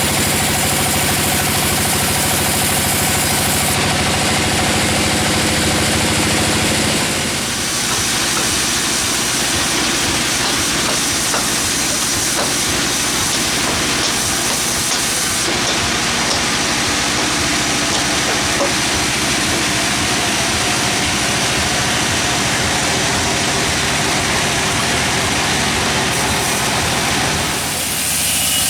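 Engine-driven sawmill running steadily, then from about seven seconds in the saw blade is cutting through a teak log with a loud, continuous hiss, until the cut ends near the end.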